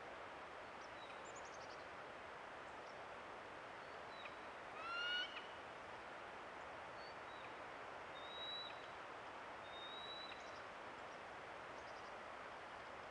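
Bald eagle calling: a short burst of stacked, rising notes about five seconds in, with thin high whistled notes before and after, over a steady outdoor hiss.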